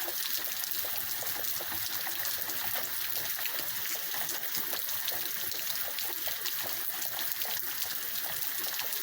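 Heavy rain pouring down, a dense, steady patter of drops splattering on surfaces close by, with water trickling and running off.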